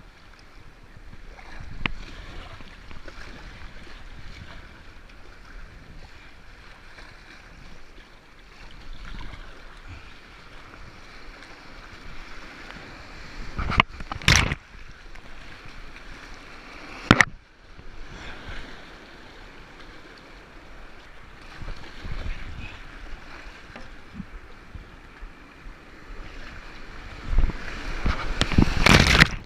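Whitewater rushing and churning around a kayak, with paddle strokes splashing. About halfway through come two sharp knocks a few seconds apart. Near the end the splashing gets louder as water washes over the deck and the camera.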